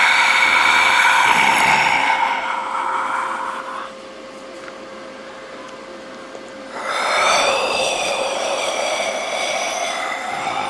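Ghostly breathing sound effect: a long, drawn-out breath that fades out about four seconds in, then after a pause another long breath rises about seven seconds in. A faint steady tone runs underneath.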